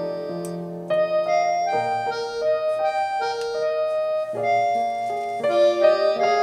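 Background music: a melody on a keyboard instrument, electric piano or organ-like, its notes held and changing every half second or so.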